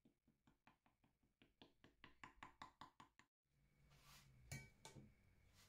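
Metal fork tines pricking a raw shortcrust pastry base in a glass tart dish: a quick, even run of faint clicks, about six a second, as the tines strike through the dough. After a short break, two louder knocks near the end.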